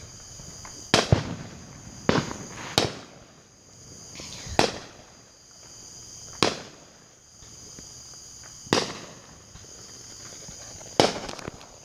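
Fireworks going off, about eight sharp bangs at irregular intervals, each followed by a short echoing tail. Insects drone steadily and high-pitched underneath.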